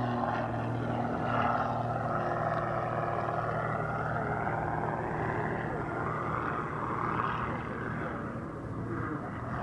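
Aerobatic Pitts Special biplane's piston engine and propeller droning through a looping manoeuvre, the pitch shifting as it climbs and turns.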